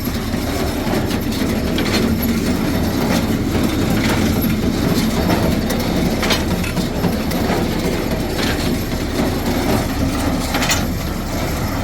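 Old New Holland Hayliner 67 square baler running empty off the tractor's PTO, with a steady mechanical clatter and a sharper clack about once a second, over the tractor's engine.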